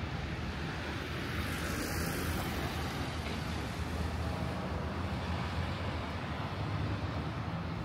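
City street traffic on rain-wet roads: a steady low engine rumble, with one vehicle's tyres hissing past on the wet pavement about two seconds in.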